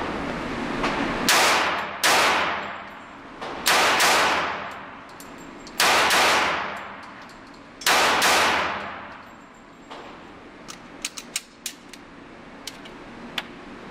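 Sig P220 .45 ACP pistol fired rapidly in four quick pairs, eight shots in all, each shot ringing out in the reverberant indoor range. After the shooting stops there are a few light clicks.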